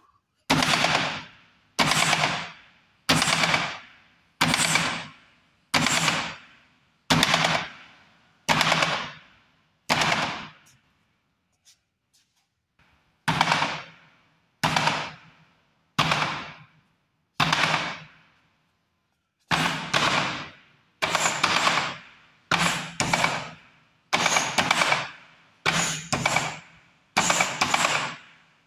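Repeated hard bare-handed strikes on a makiwara striking post. Each is a sharp smack that rings and dies away over about a second. They come in three runs at first about one every second and a half, with short pauses between runs, and several of the later strikes land in quick pairs.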